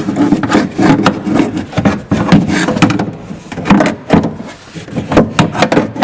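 Window track being worked inside a pickup's door shell: a run of irregular knocks, clicks and rattles, with rubbing between them, as the track is handled and bumps against the door.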